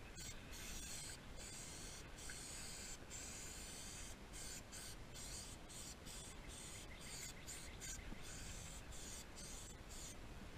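Aerosol spray can hissing in a run of short bursts, with brief breaks between them.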